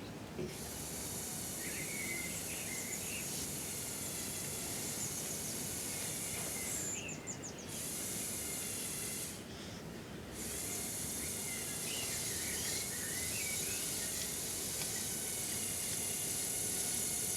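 Outdoor background noise: a steady hiss with scattered short bird chirps, and the hiss briefly dropping away twice about a third and halfway through.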